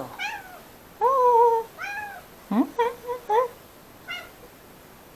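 Domestic cat giving a run of short, clipped meows, the calls its owner calls barking: one longer call about a second in, a quick burst of four short yaps around three seconds, and one more near four seconds.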